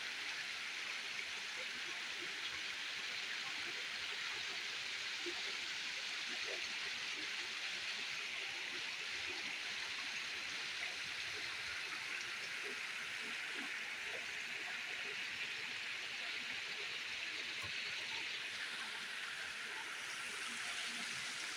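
Steady rushing of shallow water flowing through an irrigation canal that is almost shut off, with only a little water running.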